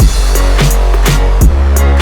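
Electronic background music: a loud sustained bass, a heavy kick about every second and a half, and quick ticking hi-hats over short repeating notes.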